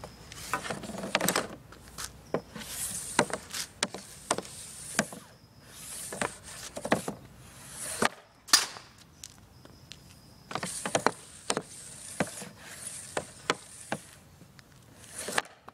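Easton Mako hockey stick shooting pucks off a plastic shooting pad: about eight shots, each a short scraping swish of the blade dragged across the pad ending in a sharp clack of blade on puck.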